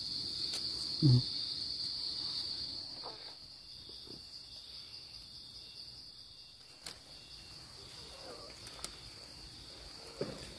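Insects trilling in a steady, high-pitched drone that gets quieter after about three seconds, with a brief low sound about a second in and a few faint clicks later.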